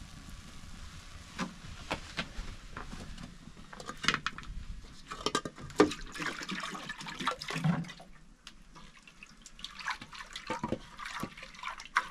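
Thin bread batter slopping and splashing as a hand scoops it in a metal bowl, beside batter cooking on a hot iron griddle over a wood fire. Irregular clicks and wet splashes come thickest in the middle, with a dull thud near the end of that stretch.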